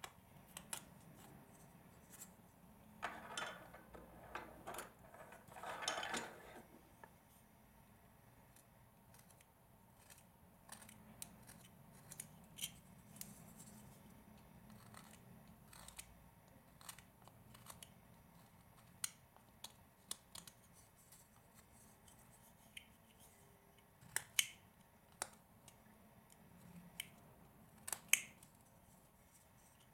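Carving knife slicing chips from a hand-held block of wood: scattered short, crisp cuts and clicks, with two longer shaving strokes a few seconds in.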